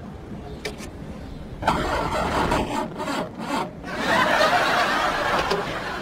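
A Mini's starter motor cranking the engine with a grinding churn. It comes in a few short goes and then a longer, louder one about four seconds in.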